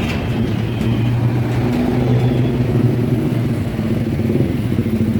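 An engine running steadily with a low hum, growing slightly louder over the first couple of seconds.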